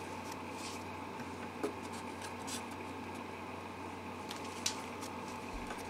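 Quiet workshop room tone: a steady low hum with a few faint, scattered light ticks.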